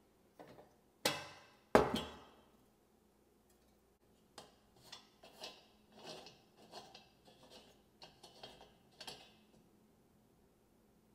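Two sharp knocks about a second in, the second louder and ringing briefly. Then a run of lighter clinks and clicks of small hard parts being handled.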